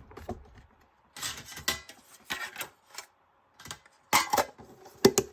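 Irregular clicks and short clattering of small hard objects being handled, with a louder cluster of clicks about four seconds in.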